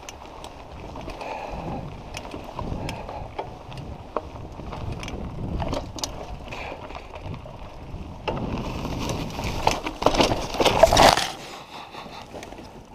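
Mountain bike rolling over a dirt singletrack, its tyres rumbling and its chain and frame rattling with scattered clicks. About eight seconds in comes a loud stretch of scraping, thrashing and knocks as the bike and rider go down into trailside brush and tall grass. It stops abruptly about three seconds later.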